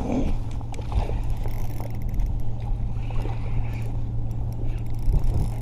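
Steady low engine hum over a rumbling background, with a few light clicks and knocks.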